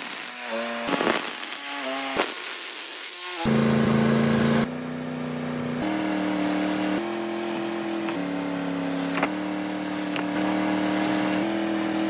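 Wood-Mizer LT40 sawmill running, its engine hum jumping to a new pitch abruptly about every second. There are a few knocks in the quieter first few seconds.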